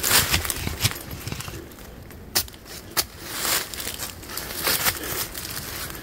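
Footsteps crunching and rustling through dry leaf litter and brush on a forest floor, with a few sharp clicks about two and a half and three seconds in.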